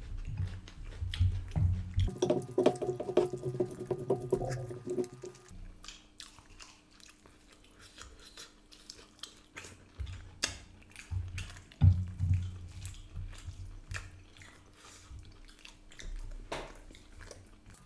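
Close-up eating sounds of mutton curry and rice eaten by hand: wet smacking and chewing, with many small sharp wet clicks. A brief held tone of several pitches comes in about two seconds in and stops a few seconds later.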